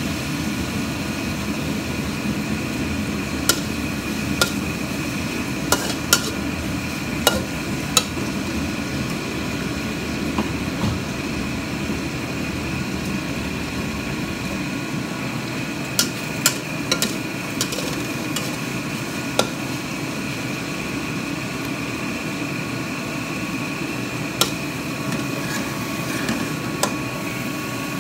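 Metal spatula clinking and scraping against a steel wok while stir-frying, about a dozen sharp irregular clinks over a steady background noise.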